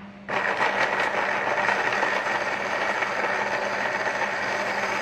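Breville Super Q countertop blender running, pureeing roasted vegetables into a sauce. It dips briefly right at the start, then runs with a steady hum.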